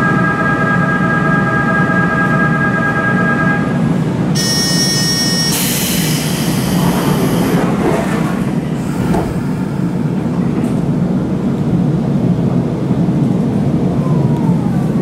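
Standing electric train with its steady interior hum. A steady electronic tone ends a few seconds in, a short departure buzzer sounds about four seconds in, and then the pneumatic sliding passenger door hisses and slides shut.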